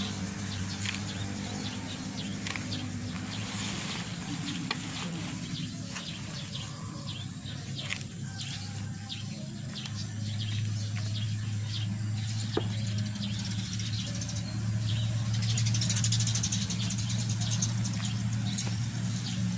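Gloved hands and a small trowel stirring and scooping a dry carbonized-rice-hull potting mix, giving scattered rustles and scrapes. Underneath runs a steady low hum that grows louder about halfway through.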